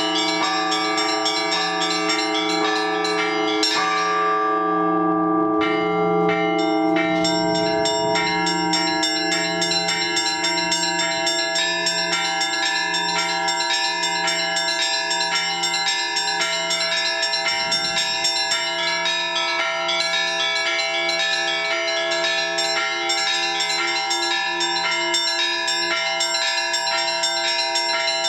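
Orthodox church bells rung together in a full peal calling to the all-night vigil: quick patterns on the small high bells over regular, roughly once-a-second strokes of a deep bell, its tones hanging on between strokes. The small bells drop out about four seconds in and come back about two seconds later.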